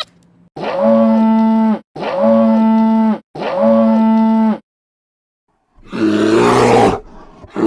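Cow mooing three times in identical, evenly spaced calls of about a second each, each with a steady pitch. A harsher, noisier animal call follows near the end.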